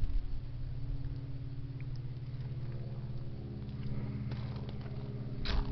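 A vehicle engine idling steadily with a low hum. Near the end comes one short crunching scuff.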